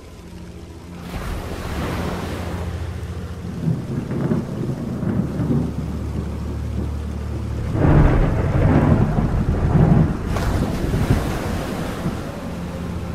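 Thunderstorm: rolling thunder over steady rain. The rumbling builds from about a second in, and the loudest peals come about eight to ten seconds in.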